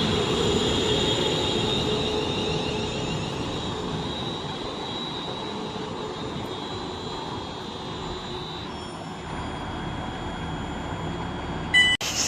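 A Class 350 Desiro electric multiple unit's steady electric hum and whine, slowly fading, as the train pulls away from the platform. The sound breaks off abruptly near the end.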